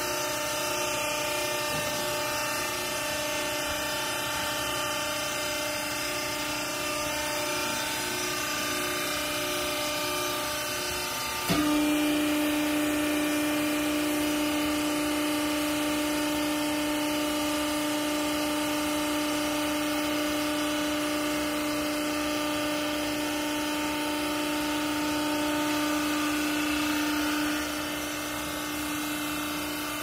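Hydraulic power unit of a vertical clothes baler running with a steady hum. About a third of the way in there is a click, and the hum turns louder with a strong steady tone as the pump works under load to drive the ram down and compress the clothes. Shortly before the end it drops back to the lighter running hum.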